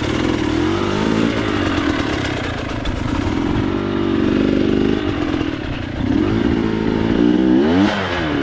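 Motorcycle engine under way with its carburetor freshly tuned, the pitch rising and falling as the throttle opens and closes. There is a quick rev up and back down near the end.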